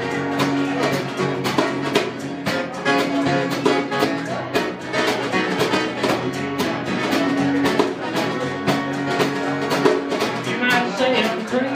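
Acoustic guitar strumming chords over a djembe and percussion keeping a steady beat, played live as an instrumental passage.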